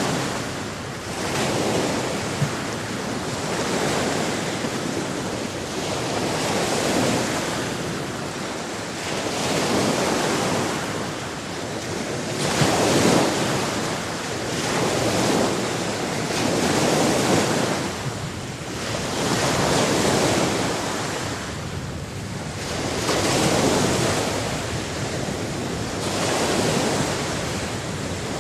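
Sea waves breaking and washing on a shore, the surf swelling and falling back about every three seconds.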